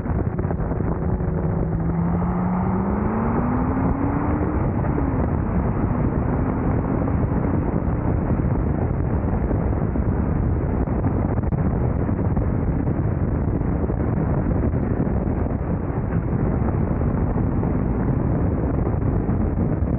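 Cars accelerating hard in a roll race, heard from a moving car: a steady roar of wind and road noise, with an engine's pitch climbing for a few seconds near the start.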